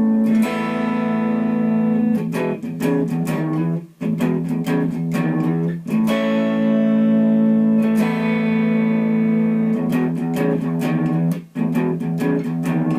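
Guitar playing a song's intro riff: a ringing chord held while single notes are picked over it, with the pattern repeating about every four seconds.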